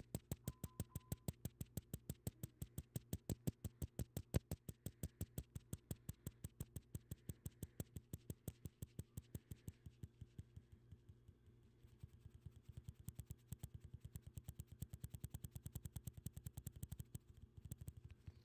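Rapid, even tapping on a smartphone's on-screen number keypad, about five key clicks a second, over a faint low hum; the clicks weaken for a couple of seconds about ten seconds in, then pick up again.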